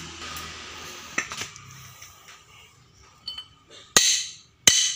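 Metal car parts and tools clinking and knocking together as they are handled, with light clinks and two sharp metallic knocks about four and four and a half seconds in.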